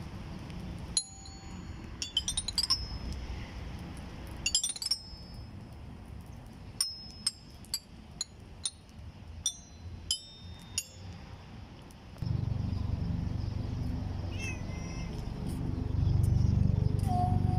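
Playground chime panel, a row of tuned bars struck by small hinged hammers, ringing with clear high notes: two quick runs up the scale, then single notes one at a time. From about two-thirds of the way through, a low steady rumble takes over.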